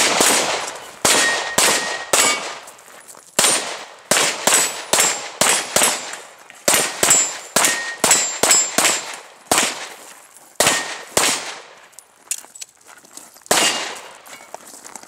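A string of about twenty gunshots fired at steel plate targets, roughly two a second at times, with the steel plates ringing as they are hit. After a short pause near the end comes one final shot.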